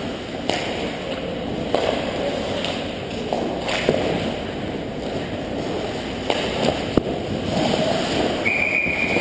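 Hockey game on an ice rink: a steady hiss of skates on ice with sharp clicks of sticks and puck scattered through it. Near the end a referee's whistle blows as play is stopped after a goalmouth scramble.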